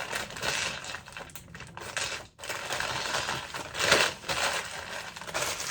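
Small carved lavender fluorite stones clinking and rattling against each other in a plastic bag as it is handled. The clinks come irregularly, and the loudest is about four seconds in.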